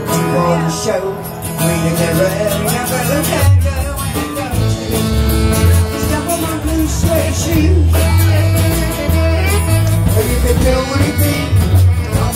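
Live band music with guitars and saxophone, and a voice singing over it. The bass fills in about three and a half seconds in.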